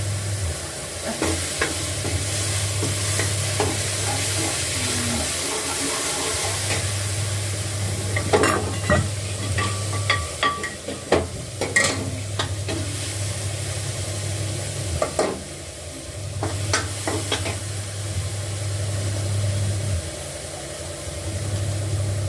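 Vegetables frying and sizzling in a pan, stirred now and then, with clicks and knocks of utensils. A low hum comes and goes several times underneath.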